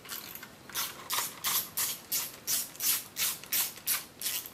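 Ratchet wrench clicking in quick, even strokes, about three a second, as a valve cover bolt holding the dipstick-tube bracket is backed out.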